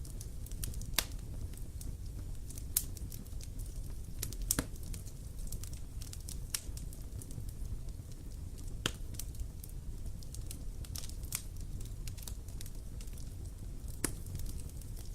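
Wood campfire crackling: irregular sharp snaps and pops, a few louder than the rest, over a steady low rumble of the burning fire.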